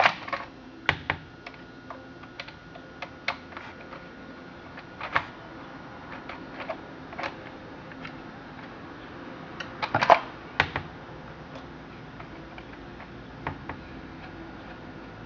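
Scattered clicks and light knocks of hands working on a chainsaw, parts and tools being handled as it is made ready to start, with a cluster of louder knocks about ten seconds in. The engine is not running.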